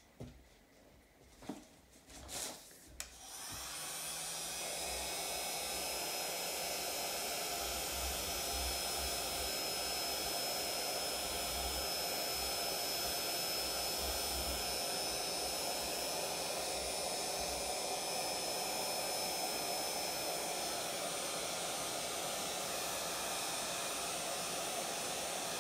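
Electric heat gun switched on about three seconds in and running steadily, a blowing fan with a thin high whine, as it is passed over freshly poured epoxy resin to pop surface bubbles. A few faint taps come before it starts.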